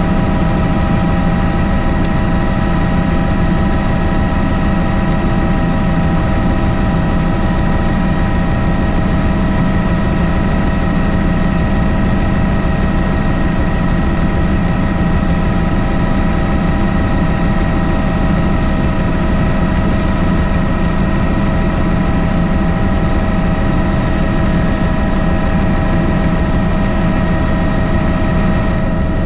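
Helicopter in flight, its turbine engine and rotors running steadily and loud, heard from on board: a constant low rotor drone under a layered, unchanging turbine and gearbox whine.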